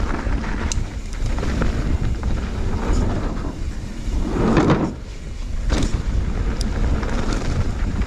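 Fezzari La Sal Peak mountain bike rolling fast downhill on a dirt trail: a steady rush of tyre and trail noise with heavy wind buffeting on the microphone and scattered sharp clicks and rattles from the bike. A louder rumble swells about four and a half seconds in.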